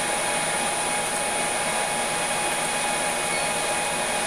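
Steady rushing noise of a fan or blower running, with a faint steady high whine on top.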